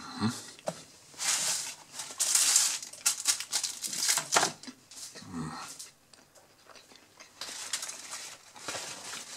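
Paper burger wrapper and paper napkins crinkling and rustling as they are handled, in several bursts with a lull in the middle.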